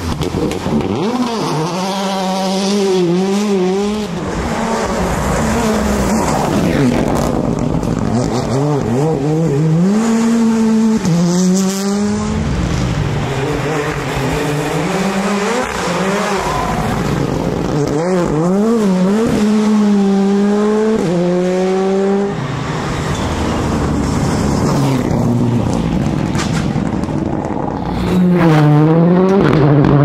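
Rally cars driven hard through corners, one after another. Their engines rev up and drop back repeatedly through gear changes and lifts.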